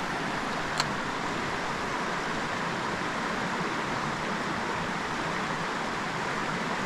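Creek water running steadily over a rocky riffle, an even rushing noise, with a faint click about a second in.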